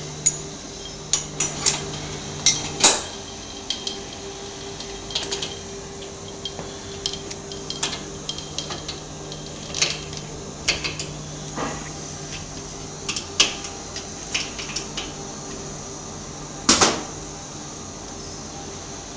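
Hand tools clinking and tapping on a motorcycle fork and its steel clamp ring: scattered sharp metallic clicks, the loudest about three seconds in and again near the end, over a steady low hum.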